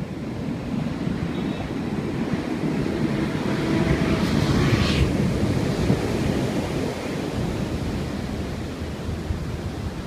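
Ocean surf breaking on a black-sand beach, a continuous wash of foam with a big wave crashing about four to five seconds in. Wind buffets the microphone with a low rumble throughout.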